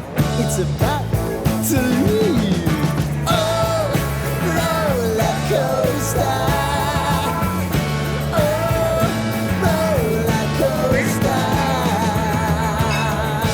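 Rock song playing as background music: a lead melody bending up and down in pitch over a steady beat.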